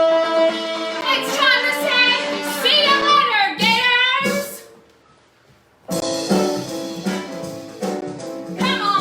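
Music with a singing voice over guitar, fading out about five seconds in; after a second of near silence, another stretch of music with singing begins.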